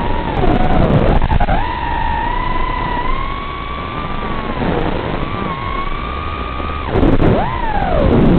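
Brushless motors of an FPV quadcopter whining, the pitch rising and falling with throttle. The pitch drops steeply and climbs back twice, about a second in and near the end, as the throttle is cut and punched again.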